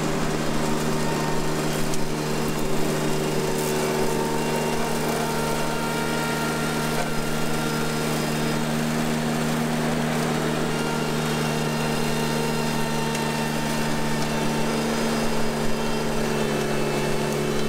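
Ventrac articulated compact tractor's engine running at a steady speed, its front mower deck cutting into tall brush.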